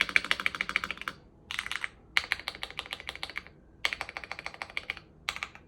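Ikki68 mechanical keyboard being typed on quickly: rapid key clicks, about ten a second, in runs of about a second with short pauses between them.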